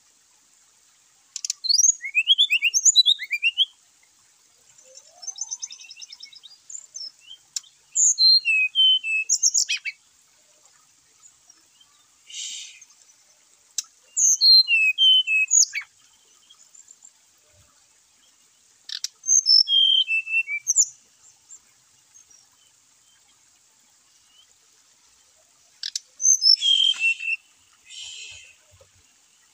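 Brown-chested jungle flycatcher singing: five short phrases of quick, clear, falling whistled notes, roughly every six seconds, with a few short buzzy notes between some phrases.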